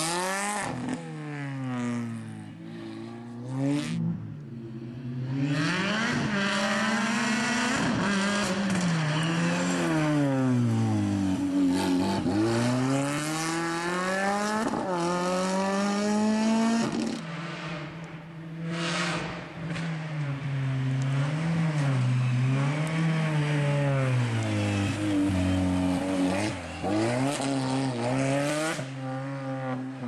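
Rally car engine revving hard through the gears, its pitch climbing and then dropping again and again as it shifts, brakes and accelerates, with a steady hiss of tyre and road noise underneath.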